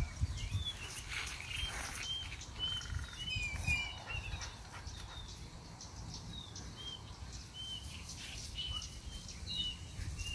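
Small birds chirping: many short, high chirps repeated over and over, over a low rumble.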